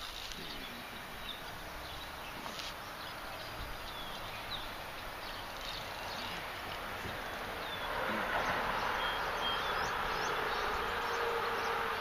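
Steady outdoor hiss with scattered short, high bird chirps; the hiss grows louder about eight seconds in.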